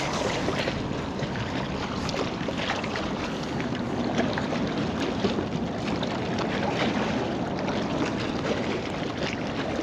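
Steady wind on the microphone over small waves lapping in rocky shallows, with a few faint clicks.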